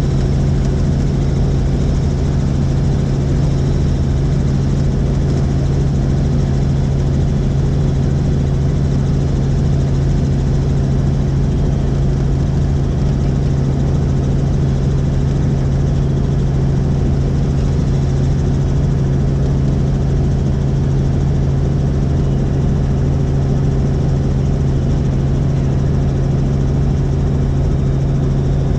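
Helicopter in flight: steady, loud rotor and engine noise with a constant low hum that does not change.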